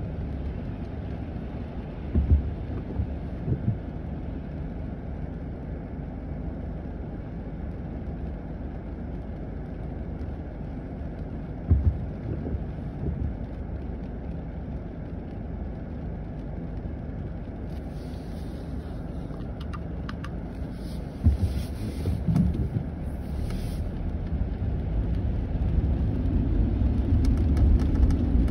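Steady low rumble of a car heard from inside the cabin while it sits in traffic, with a few short low thumps. The rumble swells near the end as the car pulls away and road noise rises.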